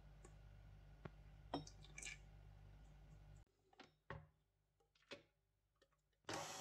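Faint clicks and a few short knocks from a tilt-head stand mixer's head and steel bowl, then near the end the mixer's motor switches on with a sudden, steady whirring noise as the dough hook starts kneading.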